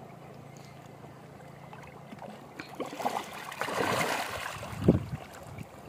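Fish splashing and thrashing at the water's surface as they feed at the shore. Quiet at first, the splashing builds about two and a half seconds in, is busiest around four seconds, and has one sharp splash near the end.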